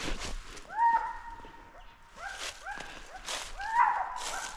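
A hunting dog whining in several short cries that each rise and then hold level, the loudest cluster near the end, over footsteps crunching through dry leaves.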